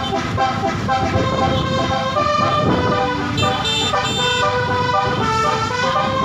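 Basuri musical air horn on a tour bus playing a melody: a run of held notes that step from pitch to pitch every fraction of a second, over a low rumble.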